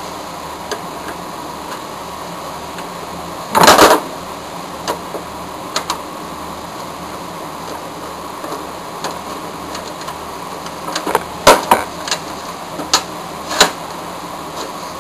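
Metal clicks and clatter of a screwdriver and lock parts against the sheet-steel lock bar of a file cabinet as an old Office Specialty lock is taken out. A louder scraping rattle comes about three and a half seconds in, and a cluster of sharp clicks near the end, over a steady background hiss.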